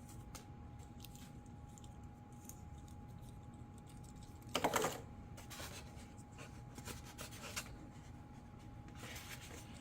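Quiet handling of small plastic parts and packaging: faint clicks and rustles, with a short crinkle about halfway through and another near the end. A faint steady tone sits underneath.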